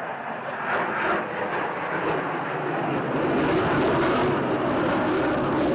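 Sukhoi T-50 (PAK FA) fighter jet's engines, a loud, steady jet noise that grows louder and takes on a high hiss about three seconds in.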